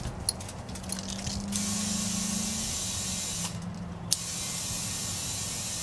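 Compressed air hissing through an air chuck into a tyre's valve stem as the tyre is filled to pressure, in two long spells with a short break, after a few clicks as the chuck is handled.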